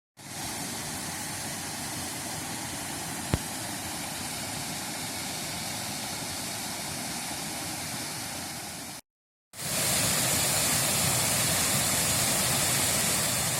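Steady rushing noise with a single sharp click about three seconds in. It cuts off abruptly about nine seconds in and resumes half a second later, louder and hissier.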